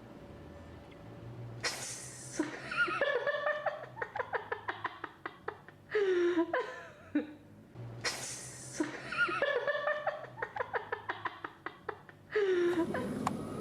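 Laughter in quick, pulsing bursts with rising and falling pitch; the same stretch of laughing seems to play twice.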